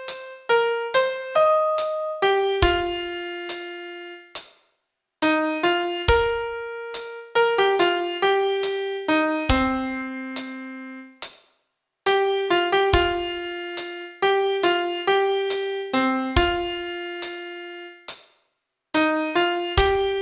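Piano playing a song melody one note at a time, each note struck and left to decay, with a low note now and then at the start of a phrase. The phrases are broken by three short silences, about four, eleven and eighteen seconds in.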